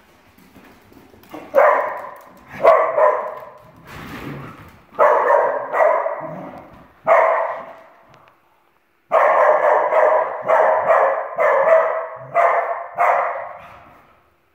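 Dachshunds barking in play: about a dozen sharp barks in uneven bursts, with a quick run of them in the second half.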